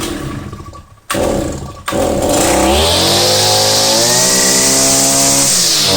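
Husqvarna 143R-II brush cutter's two-stroke engine being started: it catches about two seconds in, revs up and runs steadily, with a brief dip in revs near the end.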